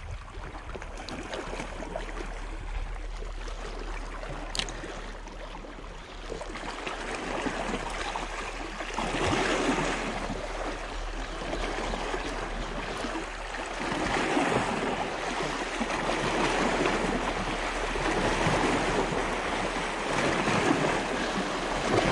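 Small sea waves washing against a rocky shoreline, a steady wash that surges louder every few seconds from about a third of the way in.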